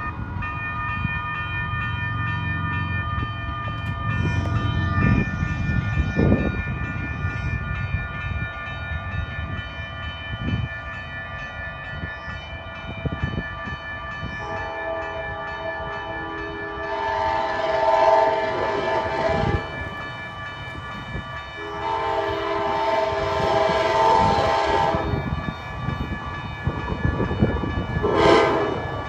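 Western-Cullen-Hayes electronic crossing bell ringing steadily with a 'sick' sound. Over it, the approaching Amtrak passenger train sounds its horn for the crossing: a long blast about halfway through, a second long blast, then a short one near the end.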